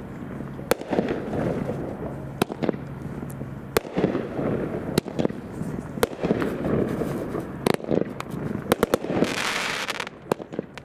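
A Magnus Phenom 350-gram consumer fireworks cake firing shot after shot: sharp reports at irregular spacing, about one a second, over a steady rumble, bunching into several quick shots near the end. This is followed by a brief rush of hiss, about a second long.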